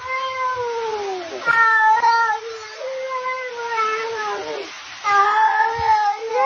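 A cat yowling: four long, drawn-out meows in a row, several sliding down in pitch at the end.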